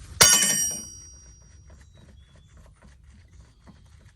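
A single sharp clang of a steel hand tool striking metal, ringing briefly, followed by faint small clicks and taps of tool work.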